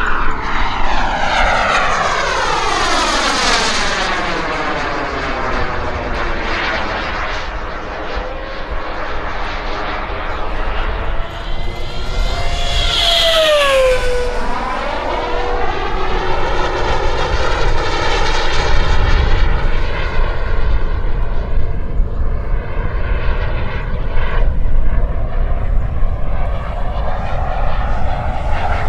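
Model jet's EvoJet 220 turbine running hard as the BVM Renegade flies past, a rushing whine that swells and sweeps in a phasing swoosh. About halfway through, a high whine drops steeply in pitch as the jet goes by.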